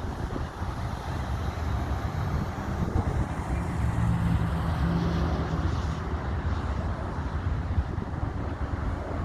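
Low engine rumble with a steady hum that swells a few seconds in and then eases, mixed with wind buffeting the microphone.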